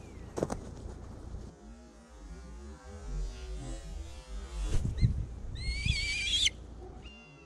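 Red kite calling: a high, wavering, quavering whistle lasting about a second, a little before the end. Just before it there are low thumps as a kite sweeps in close, and a sharp thud comes near the start, with a low wind rumble throughout.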